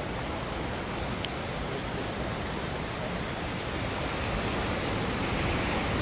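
A steady, even rush of water noise, growing slightly louder in the second half.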